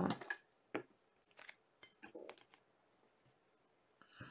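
Faint scattered rustles and small clicks of trading cards being handled during a card break.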